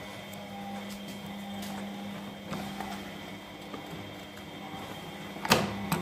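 Front-loading washing machine running mid-wash: a steady low motor hum with faint ticks as the drum turns. A single sharp knock comes near the end.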